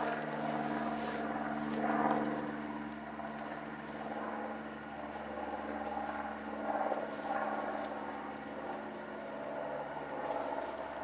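Briggs & Stratton 675 series 190cc lawnmower engine running steadily, its tone shifting slightly about four seconds in.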